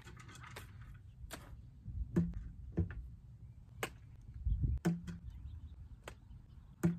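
A string of short, sharp knocks and light thumps at irregular intervals, roughly one a second, with a heavier low thud about four and a half seconds in and the loudest knocks right at the end.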